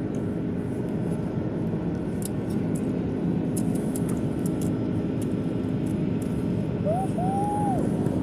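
Steady drone of an airplane in flight, with a constant low hum. Near the end comes a short, high whine that rises and falls twice.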